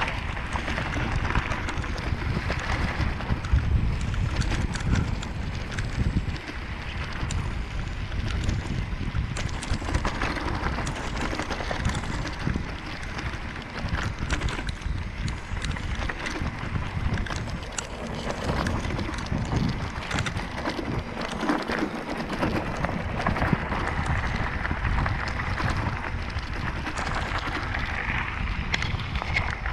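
Bicycle rolling fast downhill on a dirt and gravel track: wind buffeting the microphone over a low tyre rumble, with many small clicks and rattles from the bike and stones.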